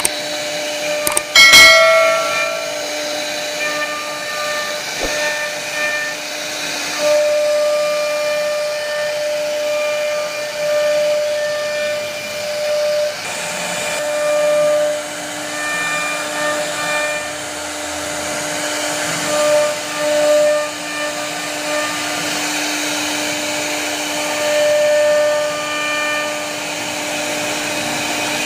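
CNC router spindle carving wood: a steady whine over the hiss of the bit cutting, swelling and fading as the cut goes on. A brief sharp ringing sound about two seconds in is the loudest moment.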